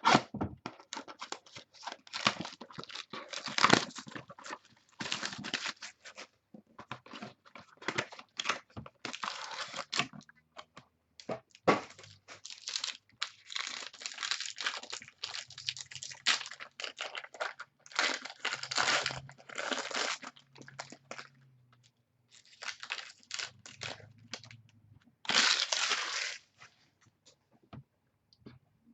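Plastic shrink-wrap being torn off a sealed trading card box and crinkled, in many irregular rustling bursts, with the box and wrapping handled between them.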